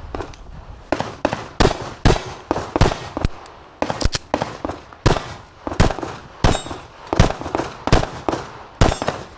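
Semi-automatic pistol firing a string of more than a dozen sharp shots, unevenly spaced at roughly one to two a second, as the shooter works through a timed course of fire.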